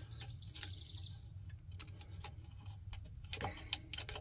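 A small bird's quick chirping trill about half a second in, over scattered light clicks and taps of hand work on the brake cable and its metal fittings, with a steady low hum underneath.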